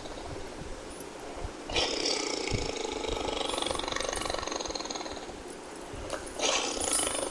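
Black tiger roaring: one long roar starting about two seconds in and lasting around three seconds, then a shorter roar near the end.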